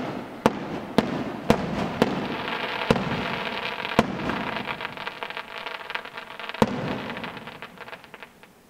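Fireworks going off: a string of sharp bangs about every half second, then a dense crackle of many small pops with a few more bangs. The crackle thins out and stops near the end.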